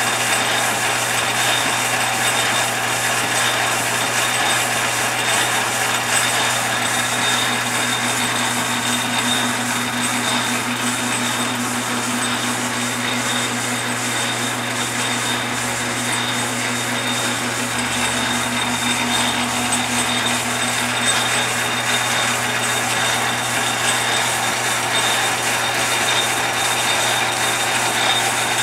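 Metal lathe running steadily, turning a long brass pin while the carriage is hand-fed slowly along it for a fine cut. A constant hum and a high whine sit over an even noise that holds level throughout.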